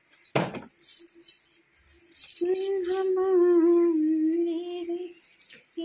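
A bunch of keys jingling lightly, with a brief rustle near the start, then a single held, slightly wavering tone of about three seconds from about two and a half seconds in.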